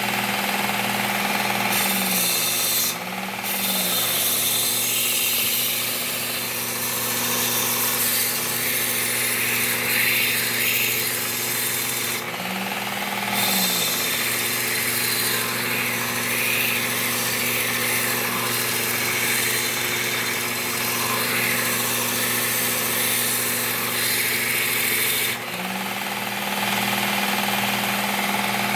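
Work Sharp Ken Onion Elite belt sharpener running, its abrasive belt grinding the edge of a steel mulching mower blade. The grinding hiss breaks off briefly three times as the blade comes off the belt, while the motor hum goes on.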